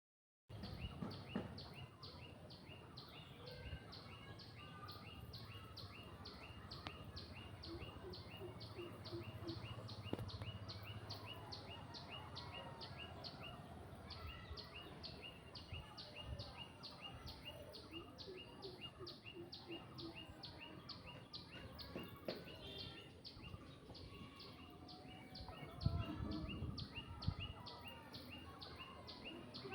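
Outdoor rural birdsong: several birds chirping, over a high, even call repeating about three times a second throughout. Near the end there are a few low bumps.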